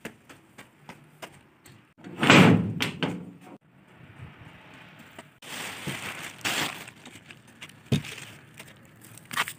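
Light, regular footsteps, then a door banging open about two seconds in, followed by scuffing and shuffling noises.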